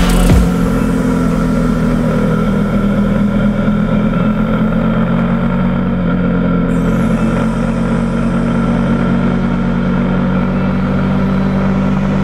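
Motorcycle engine running at a steady cruising speed, a constant even drone.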